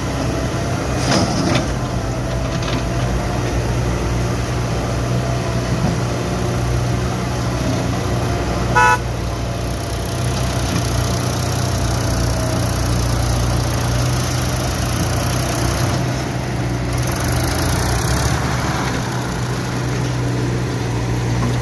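Diesel engine of a backhoe loader working at a loading site, running steadily under load. A short horn toot sounds about nine seconds in.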